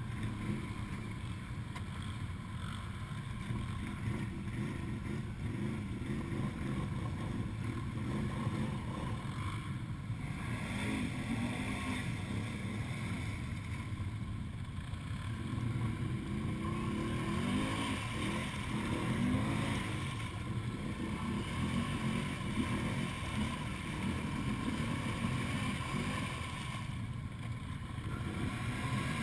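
ATV engines running at low revs, with revs rising and falling a few times as a quad bogged in a water-filled mud hole is worked.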